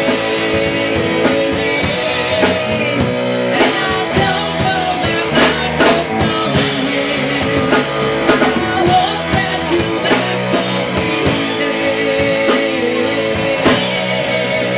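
Live rock band playing a song: drum kit, electric guitar and keyboard, with a woman singing lead.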